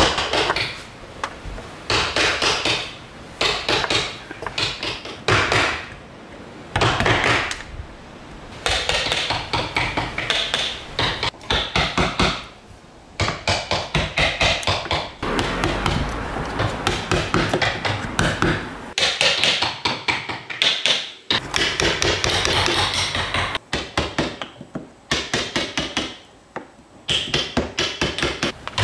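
Wooden mallet striking a carving chisel in runs of rapid blows with short pauses between. The blade cuts chips from a block of pale wood during rough carving.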